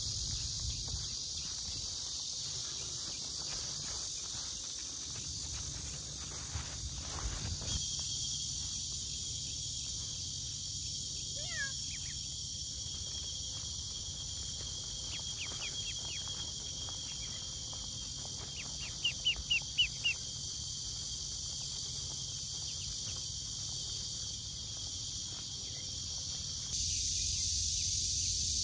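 A steady, high-pitched chorus of insects droning, broken by short runs of high falling peeps from ducklings, the loudest a quick run of five peeps about two-thirds of the way through.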